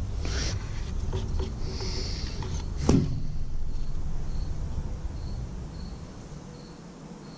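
Handling noises while the oil dipstick is pulled and wiped with a paper towel: a rustle, a brief hiss and one sharp knock about three seconds in. From about halfway, an insect chirps steadily about every two-thirds of a second over a low rumble that fades near the end.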